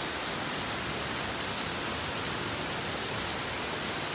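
Very heavy rain pouring down in a steady, dense hiss.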